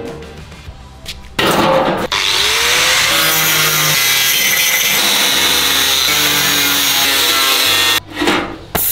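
Handheld angle grinder with a cutting disc slicing through welded steel wire mesh. It comes in with a short burst about a second and a half in, then grinds steadily until it stops suddenly near the end.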